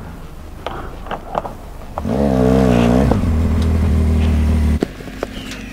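Motorcycle engine, a BMW R1200GS boxer twin, swelling in loudly about two seconds in with a wavering rise and fall in pitch, then running steadily before cutting off abruptly near the end.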